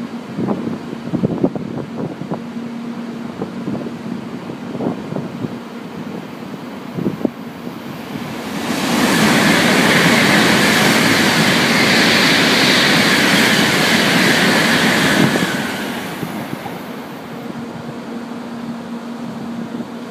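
Tokaido Shinkansen bullet train passing through the station at speed: a loud rushing of wind and wheels builds about eight seconds in, holds for some seven seconds, then dies away.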